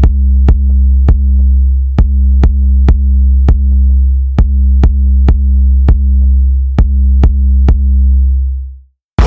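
Electronic music from a drum machine or sequencer: a deep, steady bass drone under sharp clicks about twice a second and a soft, repeating pitched pattern. It fades out near the end and stops.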